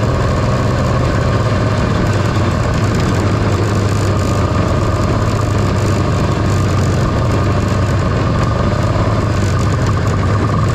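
1978 John Deere Liquifire snowmobile's two-stroke engine running at a steady cruise, heard from the rider's seat. It holds an even pitch with no clear revving up or down.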